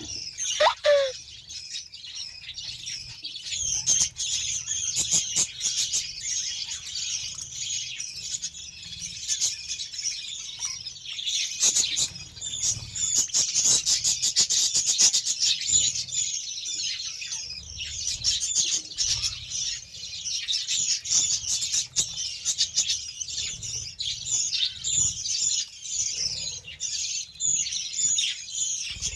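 A flock of budgerigars chattering and chirping continuously in a dense, high warble. A run of sharp clicks comes about halfway through.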